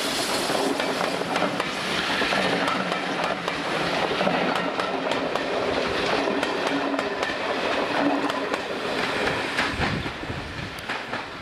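A steam-hauled train of passenger coaches rolling past close by, its wheels clattering over the rail joints in a rapid run of clicks. The sound fades near the end as the last coach draws away.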